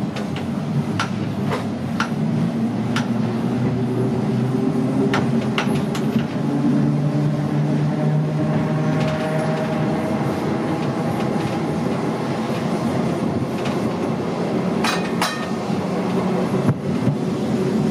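Leeds Horsfield tramcar 180 running along the track, its electric motors humming with a pitch that rises slowly as it gathers speed around the middle. Sharp clicks come every so often over the steady running noise.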